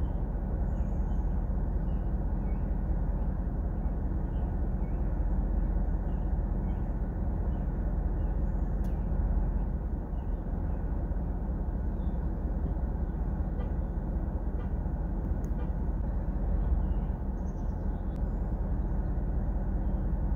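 A vehicle engine idling, heard from inside the cab as a steady low rumble, with faint short high chirps scattered over it.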